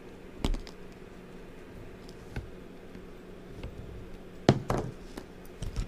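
Small sharp clicks and taps of a die-cast toy car being handled as its base is pressed to snap back into the body: a few separate taps, the loudest about four and a half seconds in, over a faint steady hum.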